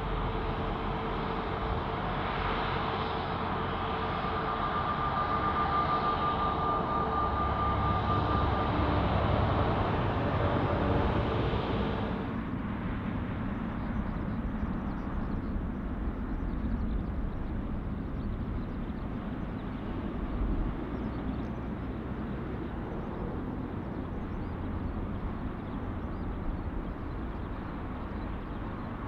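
Jet airliner engines passing close on landing approach: loud engine noise with a steady whine that cuts off abruptly about twelve seconds in, leaving a quieter low rumble.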